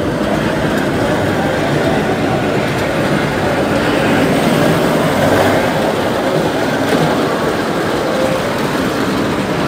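Small amusement-park kiddie train rolling along its track with a steady rumble and rattle, heard from on board.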